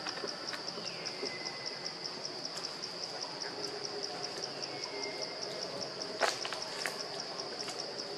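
Insects chirping in a steady, fast, high pulse, about five pulses a second. A single sharp click sounds about six seconds in.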